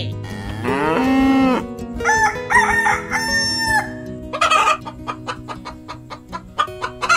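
A rooster crowing, followed by a run of quick hen clucks, over background music.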